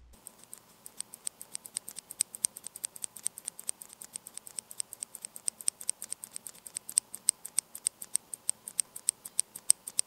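A Cherry MX Red linear keyboard switch pressed over and over in quick succession: quiet, light plastic clacks, about seven a second, with no switch click because the switch is linear.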